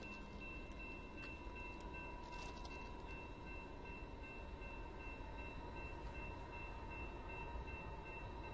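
Faint steady trackside ambience: a low rumble under several thin, steady high-pitched tones, with a few faint clicks near the start.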